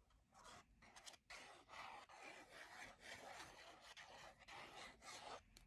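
Faint, steady rubbing on paper for about four seconds, after a few light rustles near the start.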